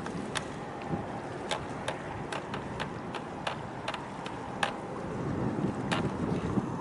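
Steady rushing noise of wind and choppy water, with a low rumble that grows louder about five seconds in. Sharp clicks break through it irregularly, one or two a second.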